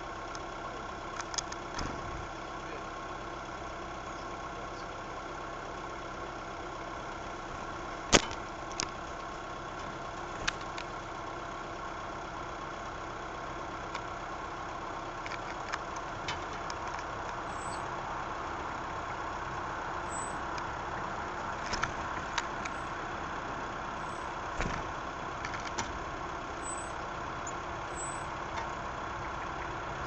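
A steady hum, like distant traffic or the recorder's own noise, with a few sharp taps and ticks, the loudest about eight seconds in; tits landing on the wooden feeding tray are the likely source of the taps. Faint short high peeps come in the second half.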